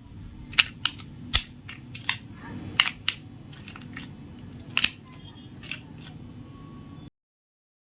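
A dozen or so sharp, irregular clicks and snaps from small objects being handled, over a low steady hum.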